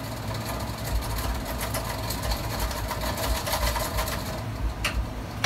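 Oktober can seamer running, its motor spinning a beer can while the roller is worked against the lid to roll the seam: a steady motor hum with rapid ticking, which stops shortly before the end.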